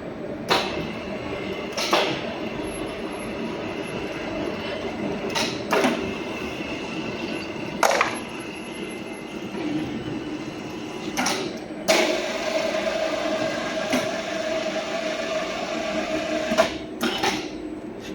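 Sharp metallic knocks on a steel slewing bearing during assembly, about ten of them at irregular intervals, several leaving a brief metallic ring, over a steady workshop hum.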